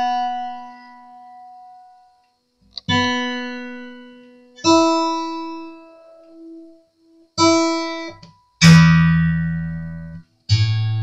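Steel-string acoustic guitar being tuned up after restringing: single open strings plucked one at a time, five times, each left to ring and die away while the tuning peg is turned. The first three notes are higher; the last two, near the end, are lower and louder.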